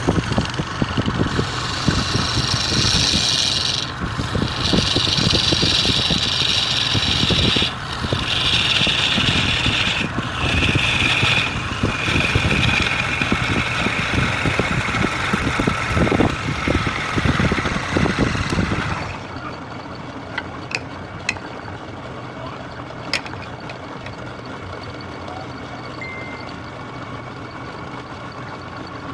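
Wood lathe running while a turning tool cuts the spinning wood, a loud hissing scrape that breaks off briefly a few times. About two-thirds of the way through the cutting stops and only a quieter steady hum remains, with a few light clicks.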